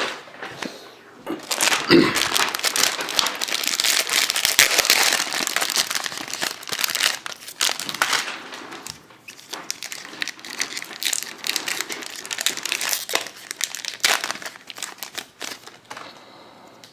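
Plastic-foil Pokémon TCG booster pack wrapper being torn open and crinkled in the hands. It is loudest and most continuous for several seconds near the start, then turns into scattered crinkles until near the end.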